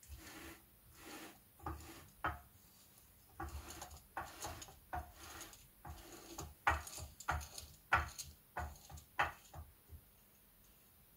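Ford M86 differential's ring and pinion gears turned back and forth by hand against a wedged rag: irregular rubbing, scraping and clicking of the gear teeth and rag, in short bursts that stop near the end. The gears are being rolled under load to wear gear-marking paint for a contact pattern check.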